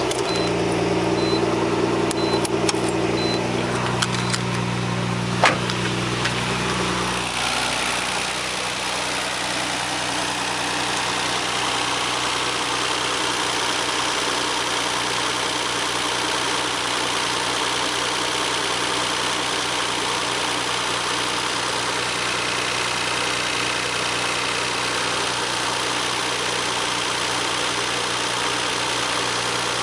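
Nissan RB26 twin-turbo straight-six idling steadily, with four short high beeps in the first few seconds and a single click about five seconds in. About seven seconds in, the low engine hum drops back and a steady rushing noise takes over and holds.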